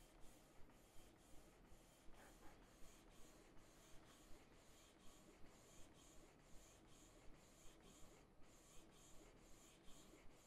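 Canon PIXMA TS8320 inkjet printer printing a photo: faint, regular swishes of the print head carriage sweeping back and forth, about three passes a second, as the sheet feeds out.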